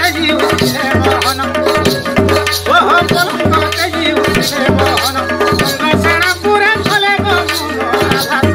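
Male voices singing a Sambalpuri danda nacha song into microphones, over a steady hand-drum rhythm.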